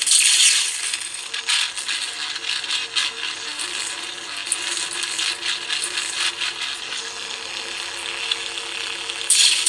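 Lightsaber sound profile playing through a small bass speaker on a test board: a steady hum with a low tone and many small crackles, with louder hissing surges in the first half-second and again near the end.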